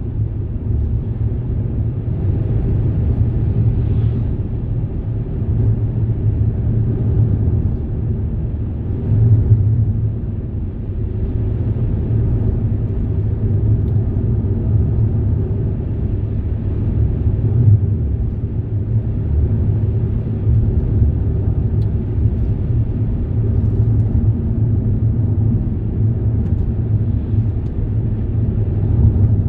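Steady low rumble of a moving vehicle, heard from inside, with no distinct events standing out.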